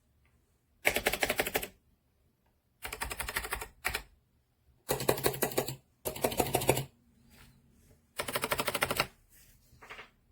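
Fast typing on an 8BitDo Retro Mechanical Keyboard: five short bursts of rapid key clacks, about a dozen strokes a second, with pauses between them.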